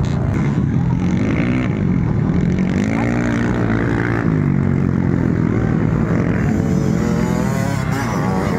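Several dirt bike engines revving hard and dropping back, their pitch climbing and falling again and again with the throttle and gear changes.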